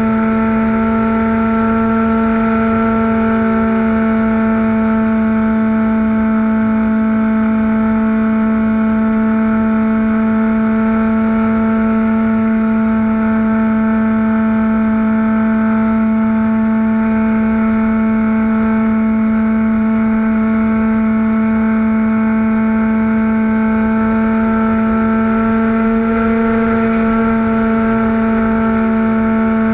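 Motor and propeller of a camera-carrying model airplane in flight, giving a steady, even drone.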